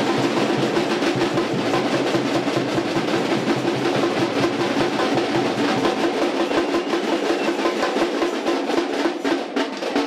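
Drums and percussion playing a fast, dense rhythm with snare-like rolls.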